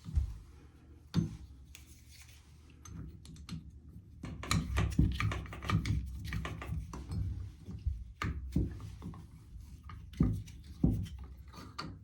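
Hand tools and a metal shower lever handle clicking, scraping and knocking as the lever's retaining screw is fitted and driven in tight on a Moen shower valve. There are sharp knocks near the start and again toward the end, with a busier stretch of small rattles in the middle.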